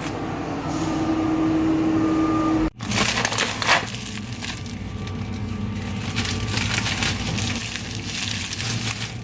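Thin plastic slow-cooker liner crinkling and rustling as it is handled and spread into a crock pot. This follows about three seconds of steady hum with a held tone that cuts off suddenly.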